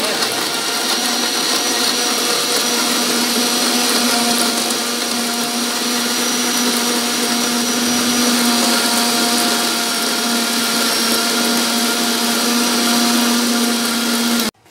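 Electric mixer grinder with a steel jar running at full speed, grinding boiled tomatoes, garlic and red chillies with salt into a chutney: a loud, steady whirr that settles into an even hum after a couple of seconds and cuts off suddenly near the end when switched off.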